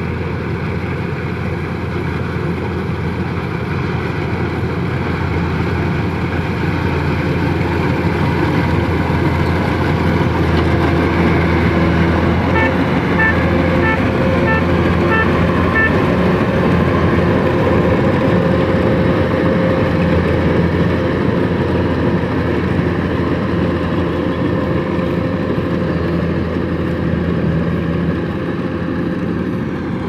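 Tracked rice combine harvester, its engine and threshing machinery running steadily as it works through the field. It grows louder over the first few seconds, is loudest as it passes close by around the middle, and eases off as it moves away.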